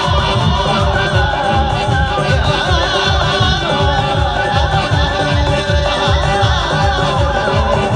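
Live music through PA speakers: a children's choir singing with a band over a steady beat.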